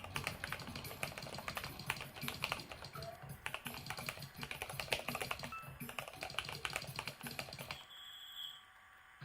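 Typing on a Keychron mechanical keyboard: a quick, uneven run of key clacks that stops about eight seconds in.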